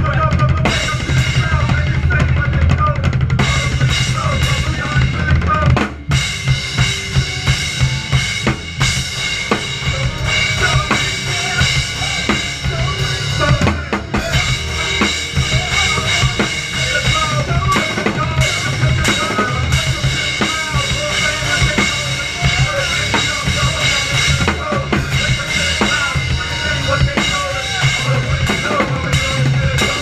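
Drum kit played with sticks, bass drum, snare and cymbals in a busy groove over a recorded music track. The sound dips briefly about six seconds in, where the part changes.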